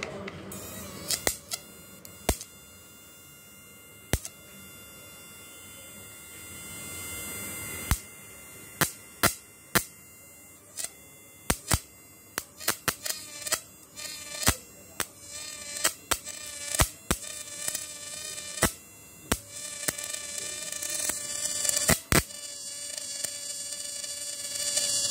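Homemade 12 V-to-1200 V AC electric-fishing inverter running under test, its electrode in a bucket of water, giving off a steady high-pitched buzzing whine. Many sharp snaps come at irregular intervals, more often from about eight seconds in. The whine grows louder near the end.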